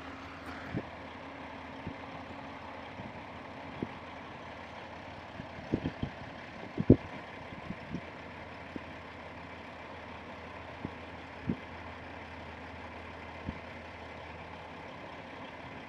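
Heavy diesel machinery, the skidders and log truck, running steadily at low level, with scattered short sharp knocks, the loudest about seven seconds in.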